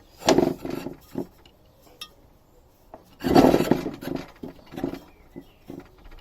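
Two rough scraping rubs about three seconds apart, each followed by a few light knocks: parts of a Honda roller mower's roller and gearbox being handled during reassembly.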